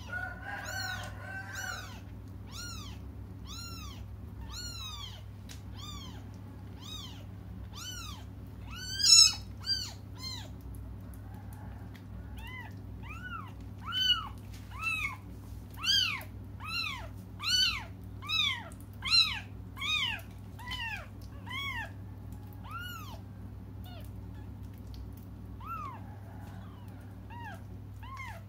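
Newborn kittens mewing: short, high cries that rise and fall, about one to two a second, loudest in a brief cluster about nine seconds in and thickest in a long run through the middle. These are the kittens' crying for their absent mother. A steady low hum runs underneath.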